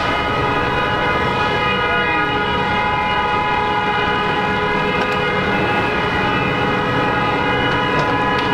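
A steady, unbroken horn-like tone blaring continuously over a constant rushing noise.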